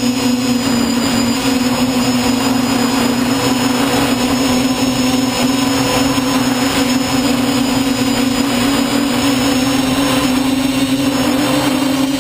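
Electric motors and propellers of an FPV quadcopter, heard close up from its onboard camera: a loud, steady buzzing whine that rises slightly in pitch near the end.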